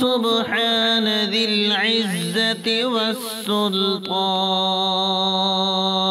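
A single voice chanting Arabic dhikr in a slow, drawn-out melodic recitation, winding through pitch turns for the first few seconds and then holding one long note.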